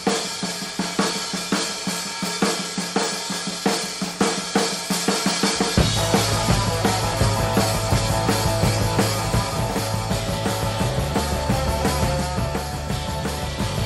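Dance music with a steady drum beat of kick and snare. A bass line comes in about six seconds in.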